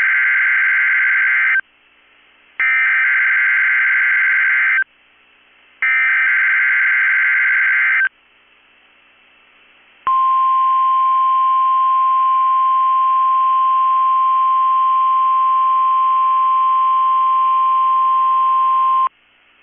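NOAA Weather Radio emergency alert signal for a Required Weekly Test. It begins with three bursts of screeching digital SAME header data, each about two seconds long with about a second between them. After a short pause comes the steady 1050 Hz warning alarm tone, held for about nine seconds before cutting off.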